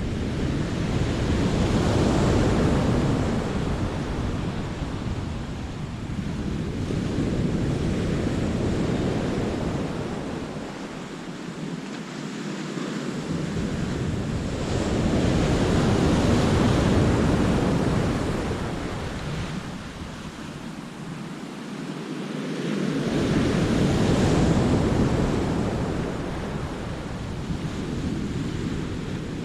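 Sea waves breaking and washing over rocks and shingle, rising and falling in slow surges about every six to eight seconds, with wind rumbling on the microphone.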